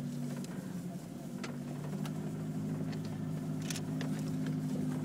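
Engine of a vehicle towing a sled on a rope, running steadily. Its note drops away about half a second in and picks up again a second later, with a few sharp clicks over it.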